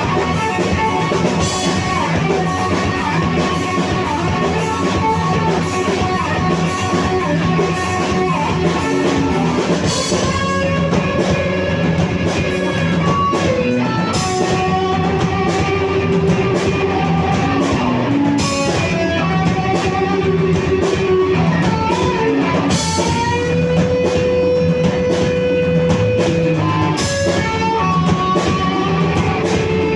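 Live rock band playing an instrumental passage: electric guitar lead with bending and held notes over bass and drum kit, with cymbal crashes every few seconds.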